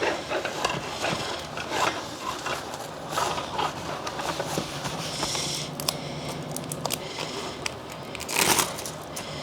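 Packaging being handled: irregular rustling, scraping and clicking as small items are packed, with a louder rustle near the end.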